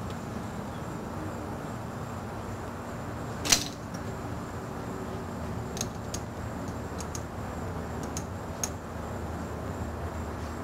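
Small clicks and taps from brass hose fittings being handled and fitted onto the ports of an electronic boost-controller solenoid, with one sharper click about three and a half seconds in and several fainter ones later, over a steady background hiss.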